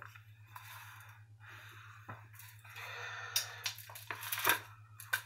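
Quiet handling of a sheathed Ka-Bar knife and other knives on a granite countertop: rustling, with a few light clicks and knocks of objects against the stone. A faint steady low hum runs underneath.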